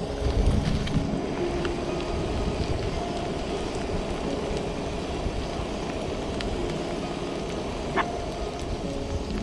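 Wind rumbling and buffeting on the microphone as a steady noise. Faint music notes sound in places, and there is one sharp click about eight seconds in.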